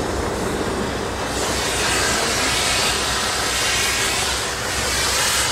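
Diesel engine of a crane lorry running steadily with a low pulsing drone and a hiss above it, the hiss growing louder about a second and a half in.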